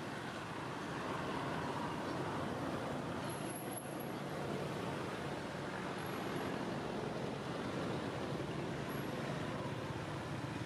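Steady background noise of distant road traffic, an even hum and hiss with no distinct events.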